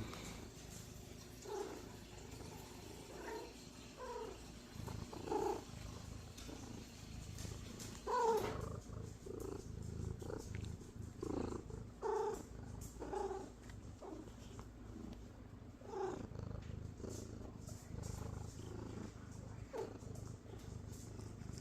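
Pet cat purring steadily, with short calls over the purr every second or two, the loudest about eight seconds in: a happy, contented cat.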